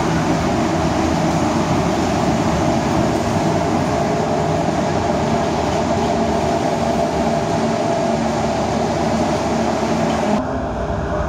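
Passenger train coaches rolling along a station platform, a steady rumble and hiss of the moving train. About ten seconds in the sound turns duller and slightly quieter.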